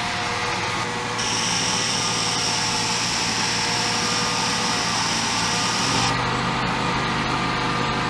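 Polyurethane foam injection gun at a hole in a concrete driveway slab, hissing with a high-pitched whine as foam is pumped under the slab to lift it. The hiss starts about a second in and cuts off suddenly about six seconds in, over a steady low machine hum.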